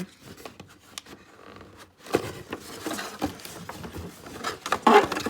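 Packaging rustling, crinkling and scraping as small installer packs are tugged out of a tight-fitting box. Quiet at first with a single click about a second in, then irregular handling noise from about two seconds, loudest just before the end.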